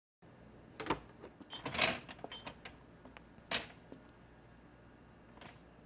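Scattered kitchen handling sounds: a few sharp clicks and clacks, with a longer rattling clatter about two seconds in, then a last faint click near the end.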